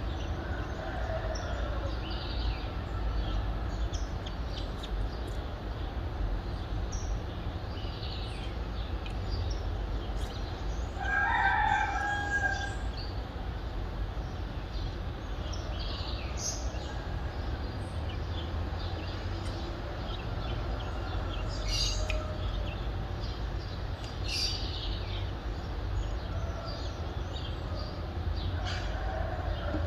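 Dawn birdsong of small birds chirping here and there, with a rooster crowing once about eleven seconds in, the loudest sound, over a steady low rumble of city traffic.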